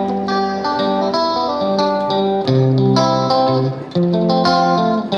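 Background music: a guitar-led instrumental playing sustained, picked notes.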